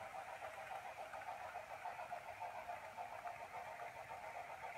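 HO scale model diesel locomotive running along the track: the steady whine of its small electric motor and gearing, with a fine rapid flutter.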